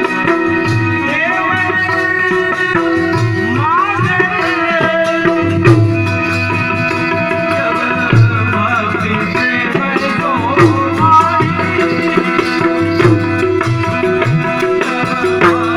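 Live Indian devotional music with no voice: a tabla-style hand drum plays a steady rhythm under held drone notes, while a melodic line slides up and down above them.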